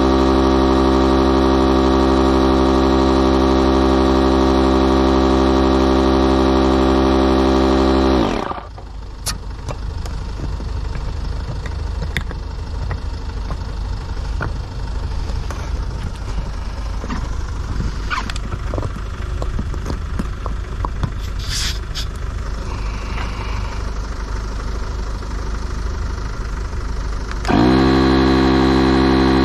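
Electric inflation pump running with a steady hum as it inflates an inflatable boat's tube, winding down to a stop about eight seconds in. Then scattered clicks of the hose and valves being handled over a steady background noise, until the pump starts up again with a rising whine near the end.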